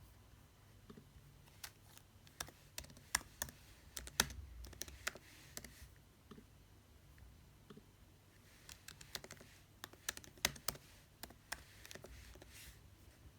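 Faint computer keyboard typing: two runs of quick, irregular key clicks, one in the first half and one in the second.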